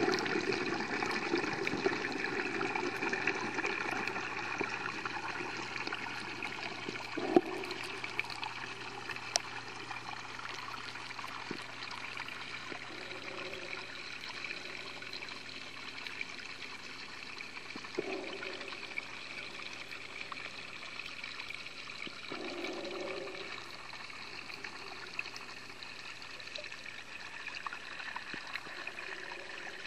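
Steady rushing and trickling of pond water, heard underwater, with scattered small clicks and a few dull knocks.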